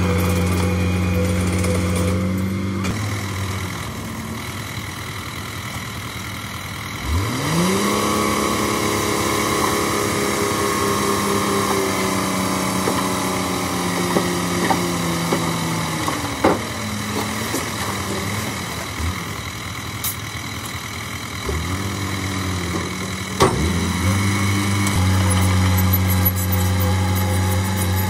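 Heavy earthmoving machine's diesel engine running, revving up sharply about seven seconds in, holding high revs, easing off around sixteen seconds and revving up again near the end. A few sharp metal clanks sound over it.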